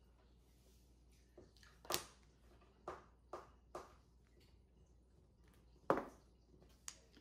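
Mahjong tiles clacking as they are set down on the table: a string of about seven sharp clicks, the loudest about two seconds in and near six seconds.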